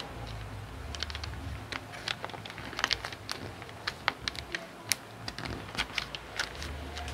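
Straight pins being pushed through a thin see-through pattern sheet into fabric: a run of irregular small clicks and crinkles as the sheet is handled and pinned down.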